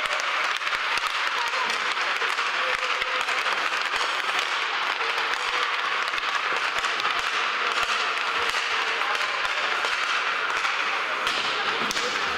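Sustained applause in an ice rink: many sharp claps over a continuous rush.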